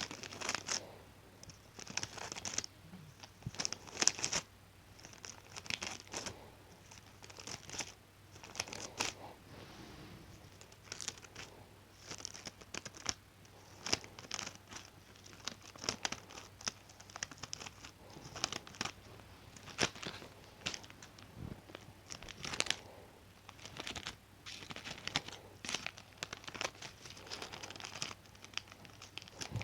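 Scissors cutting in a run of short separate snips, roughly one or two a second, with crinkling from the material being handled between cuts.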